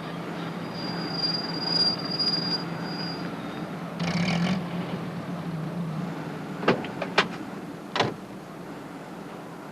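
A small van's engine running steadily, with a thin high whine during the first few seconds and a short rattle about four seconds in. Three sharp clicks follow in the second half.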